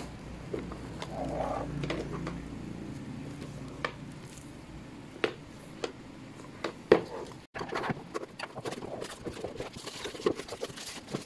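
A shrink-wrapped hard plastic organizer being handled: knocks of the plastic against the wooden table and crinkling of the plastic film, which is busiest in the last few seconds. A low drawn-out sound runs between about one and three seconds in.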